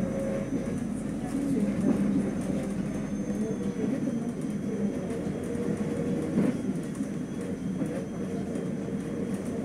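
City bus engine and road noise heard inside the cabin, a steady low drone, with a brief knock about six and a half seconds in.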